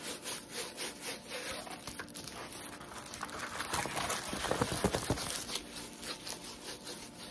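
Rustling and crinkling of a rolled diamond painting canvas being handled: unrolled, pressed flat on a table and rolled up again, with the handling loudest about four to five seconds in.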